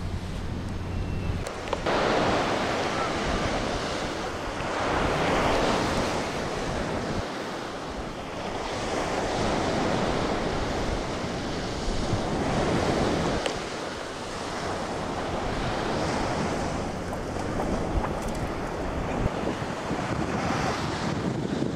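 Breaking surf and wind, swelling and easing every few seconds, with wind buffeting the microphone.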